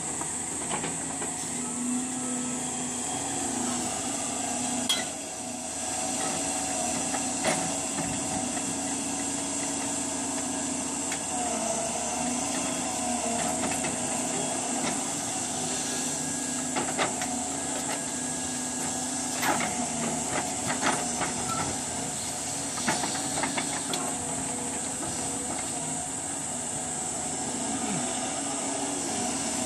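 Doosan DX210W wheeled excavator's diesel engine and hydraulics running steadily with a high hiss, while its rotating stone grab handles boulders. Sharp knocks of stone on stone or on the grab's steel come every few seconds, about half a dozen times.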